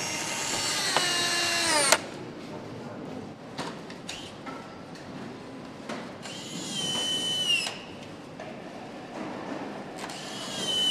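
Handheld power screwdriver running in three whirring bursts while driving fasteners on a motorcycle. The first lasts about two seconds, the second about a second and a half some six seconds in, and the third comes near the end. Each winds down in pitch as it stops.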